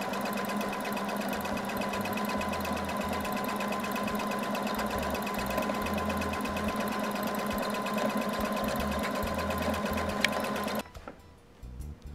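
Computerized electric sewing machine running steadily while it stitches a long seam, with a fast, even needle rhythm over a steady motor hum. It stops abruptly about a second before the end.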